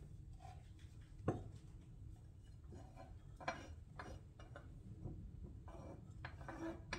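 A few light knocks and clicks of kitchen items being handled on the counter, the sharpest about a second in, over a faint low hum.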